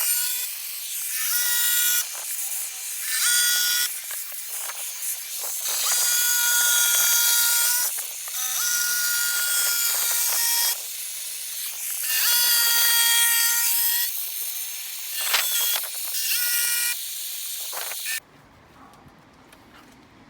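Jigsaw cutting the sink opening through a kitchen worktop: a high-pitched motor whine that runs in several stretches of a few seconds, easing off briefly between them, then cuts off suddenly near the end as the cut-out is finished.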